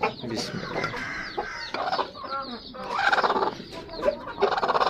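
Broody Aseel hen clucking in three rough, pulsed bursts, the protest of a sitting hen disturbed on her eggs.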